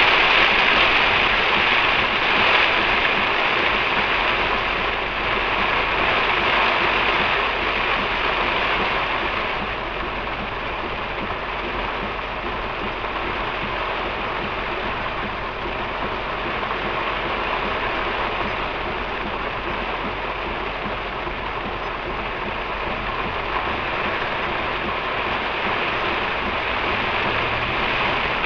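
Heavy downpour on a moving car, heard from inside: a steady hiss of rain on the roof and windshield and of tyres on the drenched road, a little heavier in the first several seconds.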